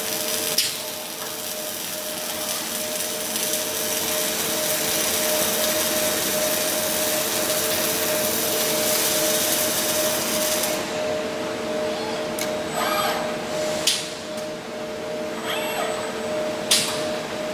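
Robotic gas-shielded arc welding: the steady crackling hiss of two welding arcs, one shielded with Elnax gas and one with CO2, over a constant machine hum, stopping about eleven seconds in. Afterwards only the hum remains, with short whirrs as the robot arms move and a couple of sharp clicks.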